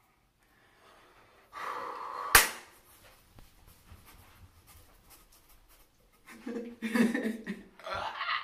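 A woman breathing hard and panting through her nerves while hard wax sets on her upper lip before a painful pull. A breathy rush about a second and a half in ends in one sharp click, and panting, half-voiced breaths come near the end.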